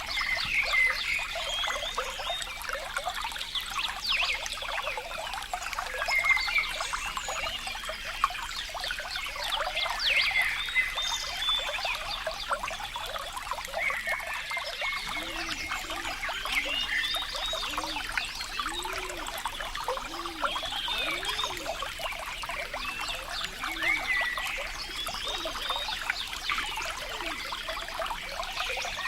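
Water trickling and gurgling steadily, with many short high chirping gurgles. From about halfway in, a low call repeats roughly once a second.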